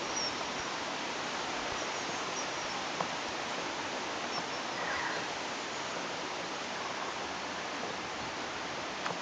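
Steady outdoor background hiss, with a few faint short high chirps and a couple of soft clicks.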